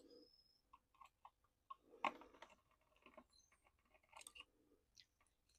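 Faint, scattered small clicks and scrapes of hands working at the tiny screws and plastic parts of a 1/18-scale RC truck, with a slightly louder click about two seconds in.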